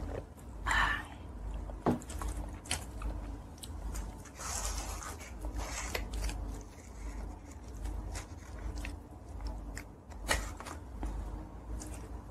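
Close-miked eating sounds: scattered mouth clicks and chewing. Near the middle there is a rustle as a pizza slice is pulled from its cardboard box.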